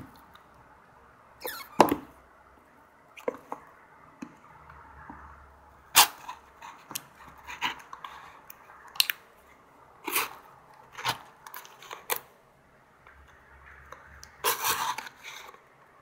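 A knife blade cutting and scraping through clear packing tape on a cardboard box: scattered sharp clicks and short rasps, with a longer rasp of about a second near the end.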